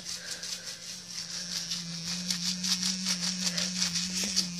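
Battery-powered toothbrush buzzing with a steady hum while its bristles scrub back and forth across a wet bar of soap, making a quick run of scratchy swishes.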